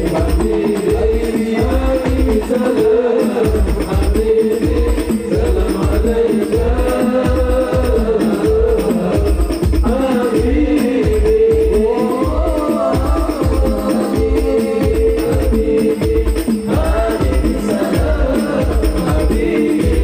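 Amplified male voices singing an Islamic sholawat melody, with a steady drum beat and jingling percussion behind them.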